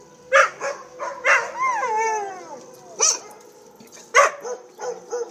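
Two dogs, a Vizsla and a French mastiff, barking and yipping in sharp bursts, with one wavering howl that slides down in pitch about two seconds in, set off by a tornado siren. A thin steady siren tone sounds underneath.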